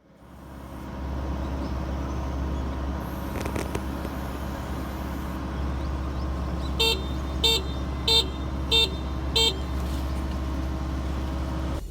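Kubota ER470 combine harvester's engine running steadily, with five short electronic beeps about two-thirds of a second apart in the second half.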